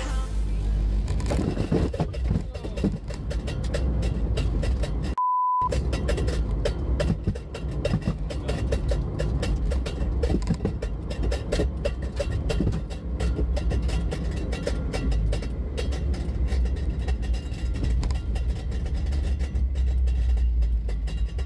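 Car driving at speed on a highway, heard from inside the cabin: a steady, heavy, low engine and road rumble with a fluttering buffet. About five seconds in, a short beep tone replaces the sound for half a second.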